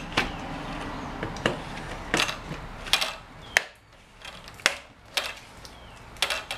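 Plastic lid being pressed down onto a plastic bucket: a series of irregular sharp clicks, snaps and creaks as the rim is worked into place.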